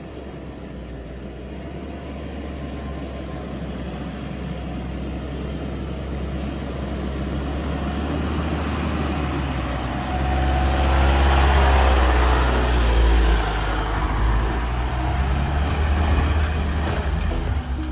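Four-wheel-drive dual-cab ute driving along a dirt track toward and past, its engine and tyre noise growing steadily louder as it approaches. It is loudest about ten to thirteen seconds in as it goes by close, then eases slightly as it climbs away.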